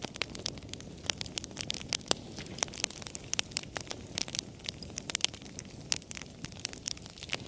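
Wood fire crackling in a fireplace: irregular sharp pops and snaps over a low, steady rumble of burning.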